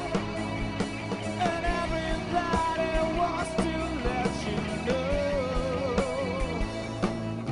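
Male lead vocal singing with some vibrato over a live band, with a steady drum beat beneath.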